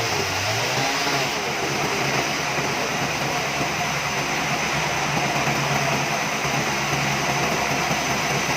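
Engine running steadily over a continuous loud hiss; its pitch shifts briefly in the first second, then holds even.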